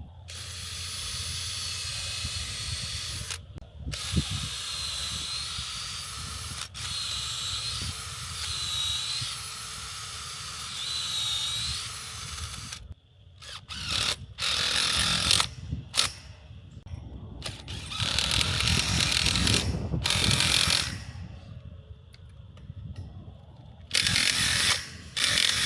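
Power drill driving screws. Its motor runs in long spells with the pitch dipping and recovering as it loads up, then in a series of short bursts with pauses in the second half.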